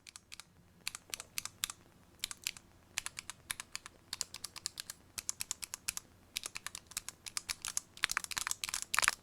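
Keys of a small Ecarke 4-key mechanical macro keypad with red-stem mechanical switches being pressed over and over, giving short sharp key clacks in irregular runs, with a fast flurry of presses near the end.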